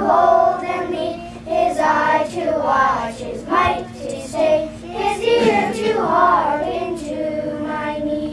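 A group of young children singing together in unison, ending on a held note near the end.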